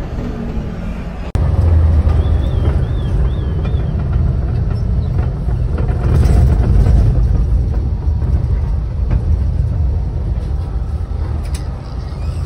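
Hino AK8 diesel bus on the move: a steady low engine and road rumble, which jumps suddenly louder about a second in. A brief faint warbling high tone comes a couple of seconds in.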